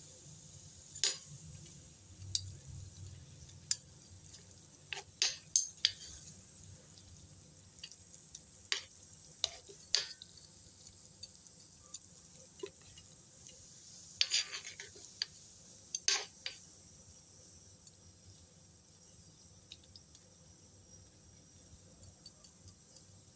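Kitchen utensils clicking and knocking against cookware now and then, some strikes in quick clusters, over a faint steady hiss.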